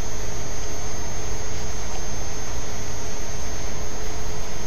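Steady hiss with a constant hum and a thin high whine under it, unchanging throughout: background noise of the recording.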